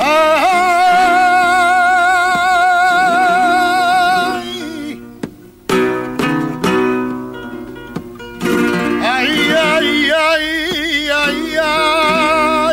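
A male flamenco cantaor's quejío por soleá: a long, wavering sung 'ay' lament, with flamenco guitar notes between phrases about halfway through, then the voice returns with winding ornaments.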